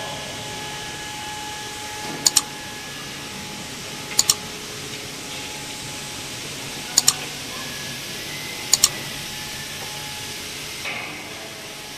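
Four sharp double mouse clicks, spaced about two seconds apart: the click sound effect of an on-screen like-and-subscribe button animation. Under them runs a steady hiss with faint steady hums.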